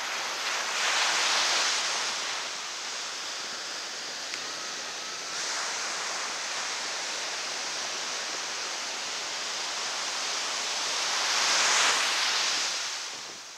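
Ocean surf breaking and washing up the beach: a steady hiss that swells louder twice, about a second in and again near the end.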